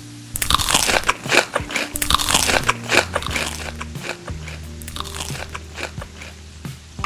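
A person biting and chewing crunchy food, a rapid run of crunches in the first few seconds that then thins out. Soft background music with held low notes plays underneath.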